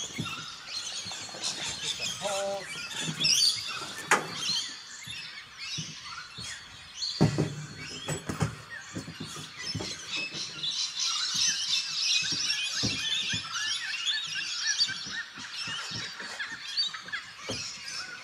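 Birds chirping and calling throughout, busiest in the second half. A few knocks and thuds from the camper's annex tent being handled come through, the strongest about 4 s and 7 s in.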